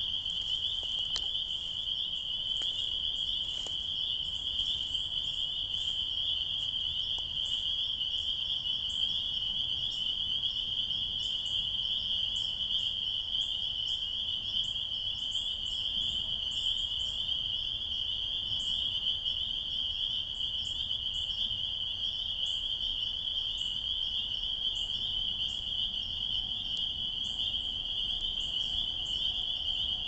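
Pond frogs calling in a dense, steady, high-pitched spring chorus, with short higher chirps scattered over it.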